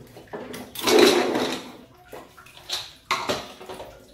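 Aluminium pressure cooker being opened by hand: the lid scrapes and rattles against the rim as it is twisted free, with a longer rush of scraping about a second in, a few light knocks, and another short scrape a little after three seconds.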